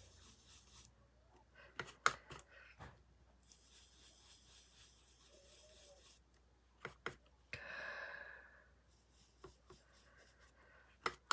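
Ink-blending tool rubbing dye ink onto a die-cut cardstock shape, a faint soft scrubbing, with a few light clicks about two seconds in and again near the end, and a breathy exhale around eight seconds.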